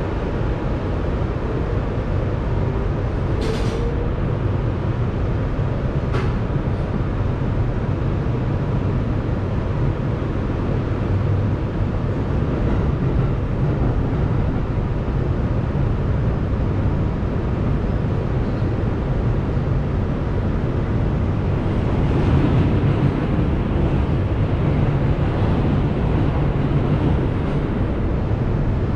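Inside an R211A subway car pulling out of a station: the steady low rumble of wheels on rail and the car running, with two sharp clicks a few seconds in.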